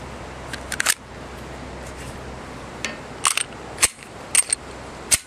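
Glock 36 pistol being reassembled, giving sharp metallic clicks and snaps from the slide and frame: a quick cluster about a second in, then four single clicks spaced about half a second to a second apart.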